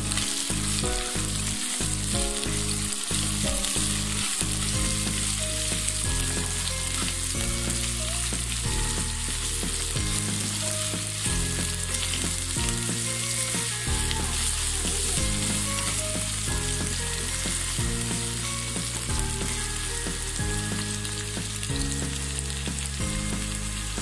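Chicken strips, carrot and green capsicum sizzling in hot oil in a non-stick wok, stirred and tossed with a wooden spatula.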